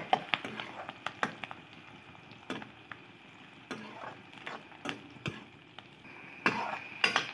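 Metal ladle stirring sliced onions in oil in a steel wok: irregular clinks and scrapes of the ladle against the pan over a faint sizzle.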